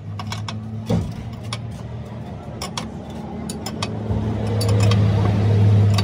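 Scattered sharp metal clicks and taps of hand tools on a truck differential carrier, with a stronger knock about a second in, over the steady low hum of an engine running, which grows louder from about four seconds in.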